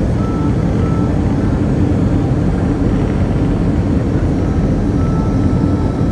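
Airliner cabin noise on the approach: a steady, loud rumble of engines and airflow heard from inside the cabin, with a faint high tone coming and going.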